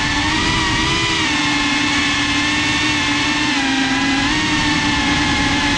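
FPV quadcopter's electric motors and propellers whining steadily in flight, the pitch wavering a little up and down with throttle.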